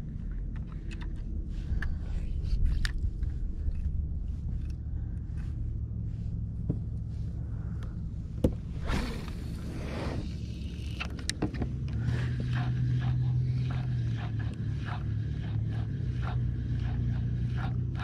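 Spinning rod and reel being worked from a kayak: scattered small clicks and knocks of handling over a steady low hum, with a brief rushing sound about nine seconds in.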